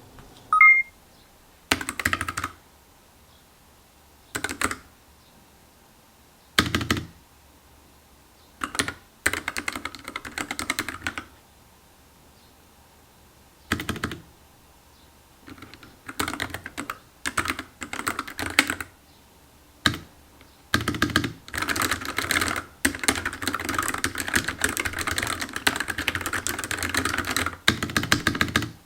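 Low-profile NuPhy Air60 wireless mechanical keyboard with Gateron Brown switches being typed on: scattered short bursts of keystrokes, then about seven seconds of continuous fast typing near the end.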